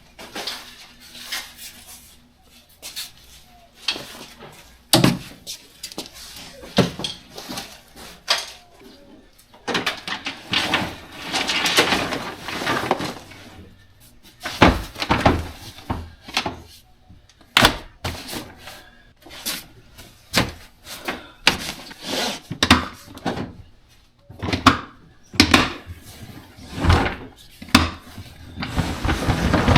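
A run of irregular knocks, clunks and door sounds, with rustling in between, as of gear being handled and packed.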